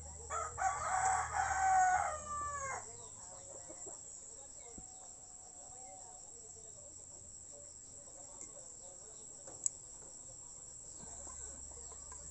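A rooster crowing once: a single long call of about two and a half seconds starting just under half a second in, its pitch dropping at the end. A single sharp tap follows later.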